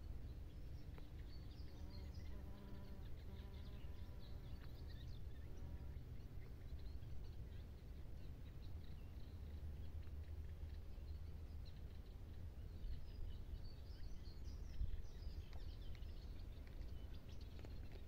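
Outdoor ambience: an insect buzzing steadily until about six seconds in, with birds chirping on and off throughout, over a steady low rumble.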